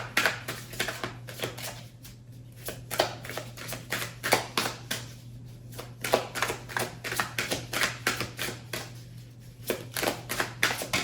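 A deck of cards being shuffled by hand: a rapid, irregular run of card taps and flutters in clusters, over a steady low hum.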